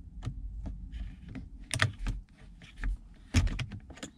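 Irregular clicks, taps and rattles of hands working at a car's gear shifter and its plastic parts, with two sharper clicks about two and three and a half seconds in.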